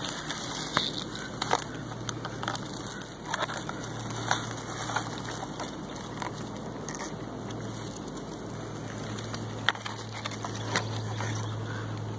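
Irregular crackling and crunching of dry grass, pine needles and gravelly ground being disturbed, with scattered sharper clicks, over a low steady hum.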